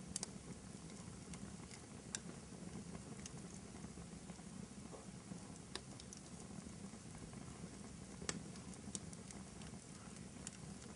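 Fireplace fire crackling: a steady low rumble under scattered sharp pops and snaps, the sharpest about eight seconds in.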